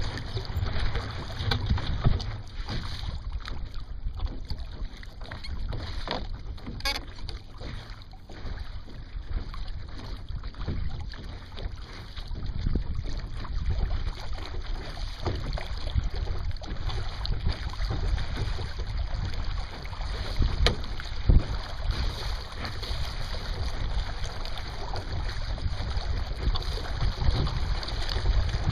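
Lake water rushing and splashing along the hull of a Sunfish sailboat under way, in uneven surges. Wind buffets the microphone as a low rumble.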